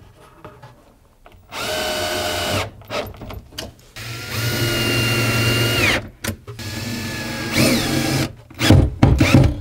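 Bosch 18 V cordless drill/driver driving screws through a metal drawer slide into OSB, in three runs: the first about a second, the second about two seconds and winding down at the end, the third short. A few sharp clacks follow near the end.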